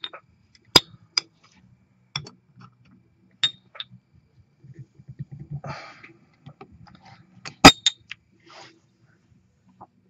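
Adjustable steel wrench clicking and clinking against the fill nipple and regulator body of a paintball HPA tank as it is set on and turned to loosen the tight fitting: scattered sharp metal clicks, the loudest about three-quarters of the way through, with a few short soft rustles midway.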